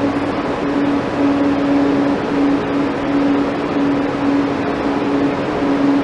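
Steady background hum with a constant hiss over it, unbroken throughout.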